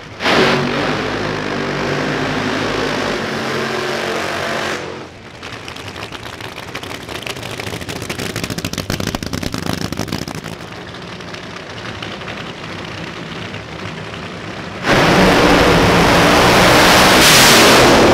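Supercharged drag-racing funny car engines at full throttle. A sudden loud blast opens and runs about five seconds, then comes a quieter, rapidly crackling engine sound, and a second, louder full-throttle burst about three quarters of the way in, which carries to the end.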